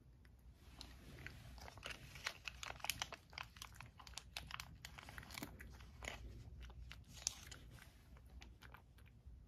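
A cat crunching and chewing a small dry treat (Churu Bits): a run of quick, faint crunches that thins out near the end.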